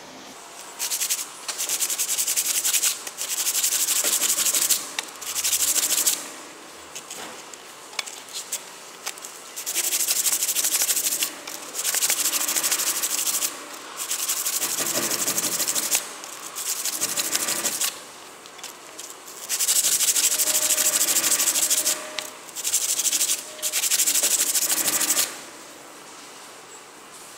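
Hand sanding on the flat of a steel cleaver blade cut from a saw blade: about ten bursts of rubbing strokes, each lasting one to two seconds, with short pauses between them. No motor is heard.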